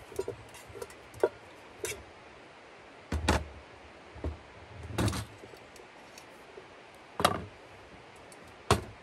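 Irregular knife knocks on a chopping board while vegetables are cut up for a stew, about eight or nine sharp knocks spread unevenly, a few of them heavier thumps.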